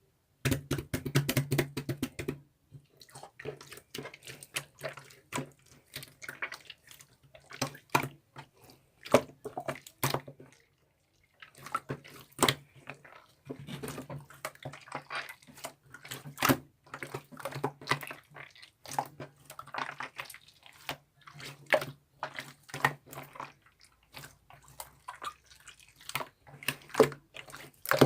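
Slime being squished, pressed and stretched by hand, making wet, sticky clicks and pops in quick irregular runs, with a faint low hum underneath.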